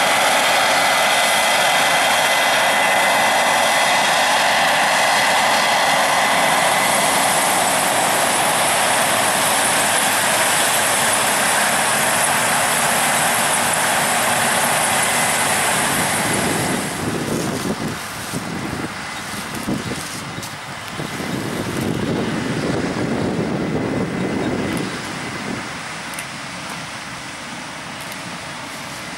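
Combine harvester machinery running steadily and loud, with a thin high whine over it. About seventeen seconds in, the sound drops and turns into a lower, wavering rumble.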